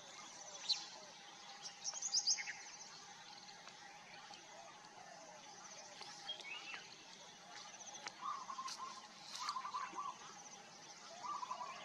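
Forest birds calling: a few short high chirps about two seconds in, then short warbling trills in the second half and again near the end. A few sharp ticks and a steady faint drone run underneath.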